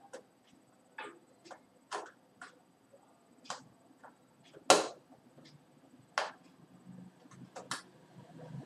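Screwdriver working small screws out through a cardboard box: a series of irregular sharp clicks as the tip catches and turns in the screw heads, the loudest about halfway through.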